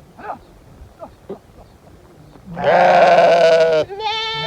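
Sheep bleating: a few faint clicks, then one loud, quavering bleat lasting just over a second, about two and a half seconds in, and a second bleat starting near the end.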